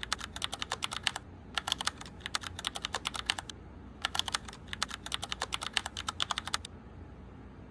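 Typing on a computer keyboard: quick key clicks in three runs with short pauses between, stopping about six and a half seconds in.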